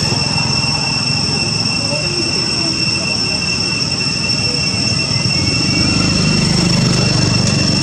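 Steady high-pitched drone of cicadas in tropical forest, with a low rumble underneath that grows louder near the end.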